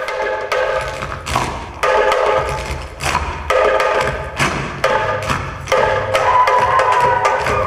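Djembe played by hand with rapid sharp slaps and strokes, over music with sustained pitched notes that break off and restart every second or so.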